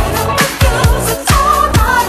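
1980s disco dance music playing, with a steady kick drum about two and a half beats a second under a melody line.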